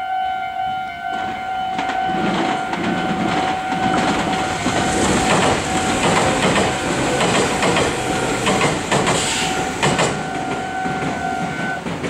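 Japanese level-crossing electronic warning bell ringing steadily while a Meitetsu 6500 series electric train passes. The train's running noise starts about a second and a half in, with its wheels clacking over the rail joints. The bell cuts off just before the end as the crossing clears.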